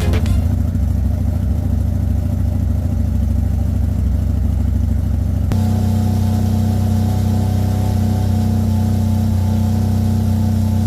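CFMOTO ZForce 1000 Sport's V-twin engine idling steadily through an aftermarket exhaust. About halfway through the sound changes abruptly to a fuller, more even hum at the same pitch.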